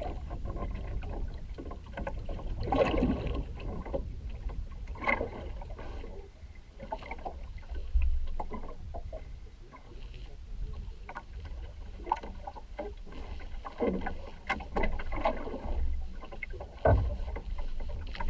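Water splashing and sloshing in irregular strokes, over a steady low rumble.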